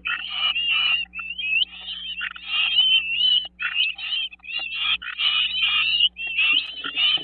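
Great crested flycatcher nestlings begging while being fed: a dense, continuous run of high, squeaky, sliding calls, many overlapping, with a faint steady low hum underneath.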